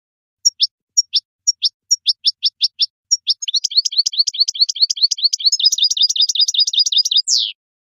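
European goldfinch singing: a few separate sharp, high notes dropping in pitch, then a fast continuous twittering trill for about four seconds, ending on one falling sweep.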